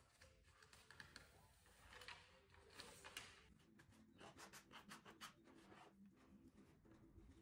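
Faint rustling and scraping of wood-grain self-adhesive vinyl film as its backing is peeled away and a plastic card smooths it onto a tabletop, with quick scratchy strokes in the second half.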